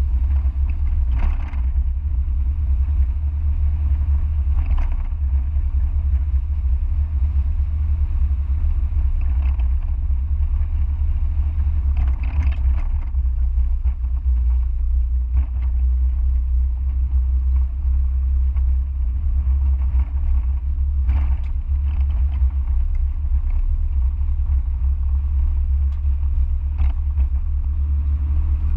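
Onboard sound of a Mazda MX-5's four-cylinder engine and tyres on the road: a steady low rumble while driving, with a few brief clatters along the way.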